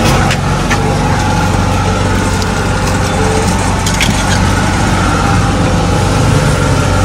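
A loud, steady idling engine drone with a low hum, broken by a few short clicks and crinkles of aluminium foil as food is wrapped.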